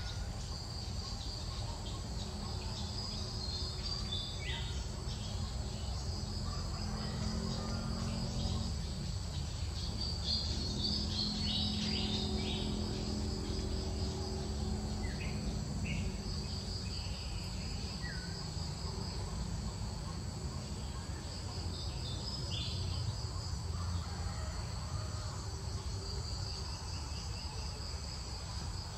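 Steady chorus of insects: a shrill high trill that swells and pulses without a break. Scattered short high chirps and a constant low rumble sit beneath it.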